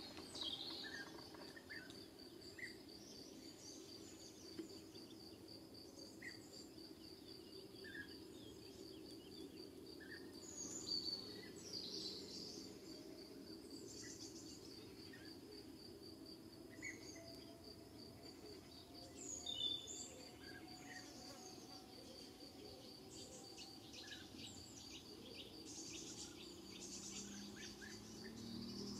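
A steady, high, evenly pulsing insect song, cricket-like, with scattered short bird calls over it and a low steady rumble of background noise.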